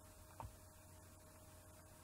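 Near silence: room tone with a faint steady hum, and one faint click about half a second in.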